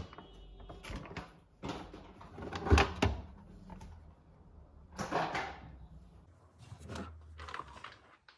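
Household cleaning products being lifted out and set down inside an under-sink cabinet: rustling packets and a few knocks and thumps, the loudest about three seconds in, with others about five and seven seconds in.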